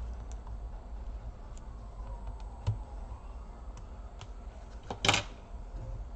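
Small clicks and taps of laptop parts and tools being handled during disassembly, with a knock near the middle and a louder, sharper clatter about five seconds in, over a low steady hum.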